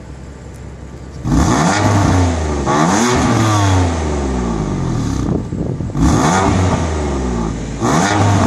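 2015 BMW M4 Coupe's twin-turbocharged straight-six, heard at its quad exhaust tips: idling, then about a second in revved again and again, the pitch rising and falling with each rev, with a brief drop back about five seconds in before more revs.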